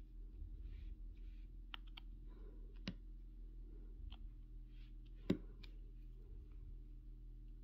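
Diamond-painting drill pen picking up square drills and pressing them onto the canvas: scattered light clicks and taps, with one sharper click about five seconds in and brief soft scrapes between.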